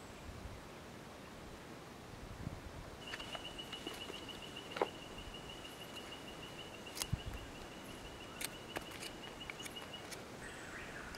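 A rapid, even trill from a calling animal, held on one high pitch for about seven seconds, starting about three seconds in. Scattered light clicks and knocks sound over it.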